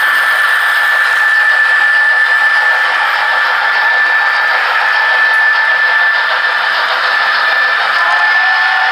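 Model train running on the layout: a loud, steady hiss of mechanical noise with a steady high whine. Lower tones join in near the end.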